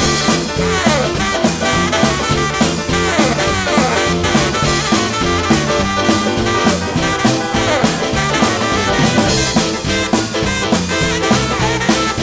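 Live swing band playing an instrumental passage with no singing: upright bass, drum kit keeping a steady beat, keyboard, saxophone and electric guitar.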